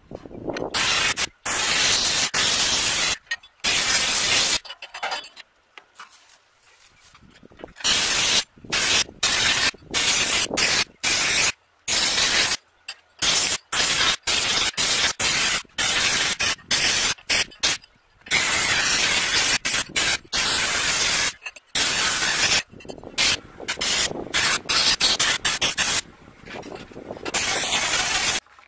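Handheld sandblasting gun hissing as it blasts generator housing and end-frame parts clean, switched on and off by its trigger in bursts of under a second to several seconds, with a longer pause about five to eight seconds in.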